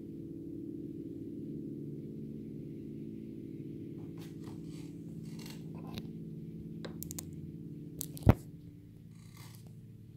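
Piano strings ringing on after low notes are struck and held, a dense steady hum of many tones slowly dying away. From about four seconds in there are rustles and clicks of handling, with one sharp knock a little after eight seconds, the loudest sound.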